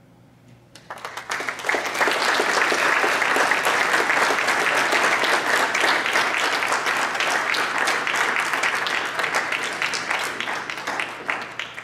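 Audience applauding: the clapping starts about a second in, quickly builds to full, holds, and tapers off near the end.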